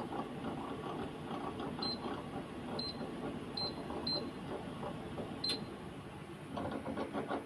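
Five short, high electronic beeps spaced irregularly over a few seconds, over a busy clattering background; voices start up near the end.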